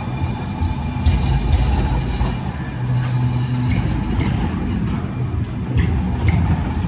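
Light rail train passing close alongside the platform: a steady low rumble, with a brief hum about halfway through.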